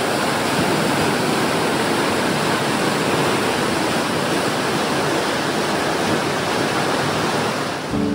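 Cave spring water gushing up and rushing along its channel: a steady, loud rush of water.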